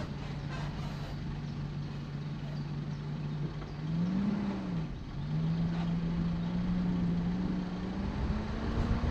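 Car engine pulling steadily while driving off-road, over a low rumble with scattered knocks. The engine note rises and drops briefly about four seconds in, then climbs slowly.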